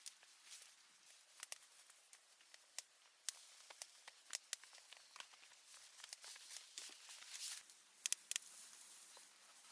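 Irregular sharp crackles and snaps of dry twigs and brush over a faint rustle, a few louder snaps about a second and a half, three seconds and eight seconds in.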